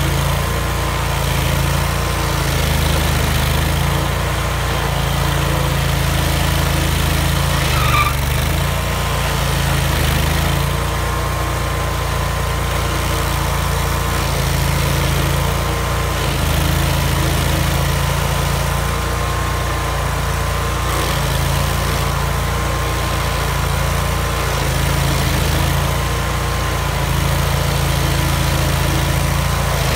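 Vermeer stump grinder's engine running steadily as its cutter wheel works a stump, the engine note shifting every few seconds as the wheel is swung.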